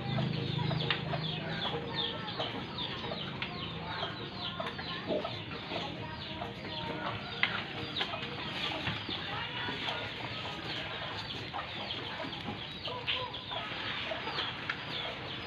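Chickens clucking and peeping, a steady chatter of many short falling calls.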